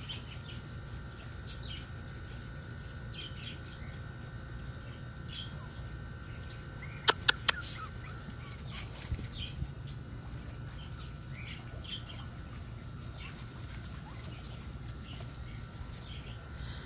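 Birds chirping now and then over a faint steady hum. About seven seconds in come four sharp clicks in quick succession, louder than anything else.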